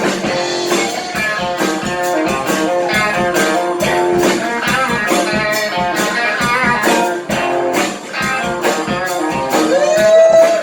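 Live blues band playing an instrumental break: a guitar plays a lead line over drums, bending a note up near the end and holding it.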